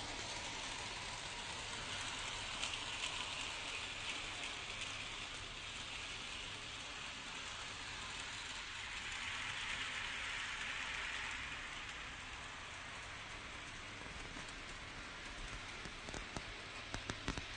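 Model train running on sectional track: a steady rattling hiss of the small wheels and motor, a little louder about halfway through, with a few sharp clicks near the end.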